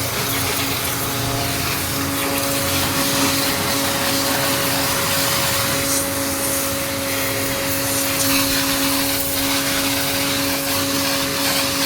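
Electric pressure washer running steadily, its motor humming under the hiss of the water jet as it sprays the washing machine's parts during deep cleaning.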